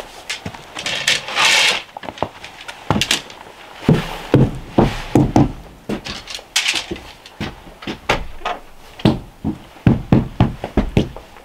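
Irregular knocks and heavy thumps on wood, boots on wooden floorboards and a door, with two short bursts of rustling about a second in and midway.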